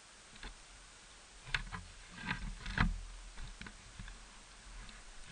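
Camera handling noise: a scattered run of clicks, rubs and knocks as the small action camera is moved about. Faint steady hiss underneath.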